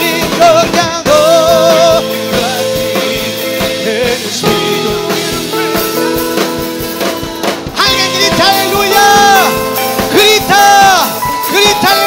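Live church worship music: a band with guitar playing while voices sing with vibrato, the singing growing fuller about eight seconds in.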